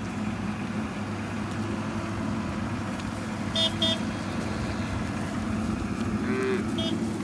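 A farm vehicle's engine running steadily, with two quick horn toots about three and a half seconds in and a third near the end. A short wavering cry is heard a little after six seconds.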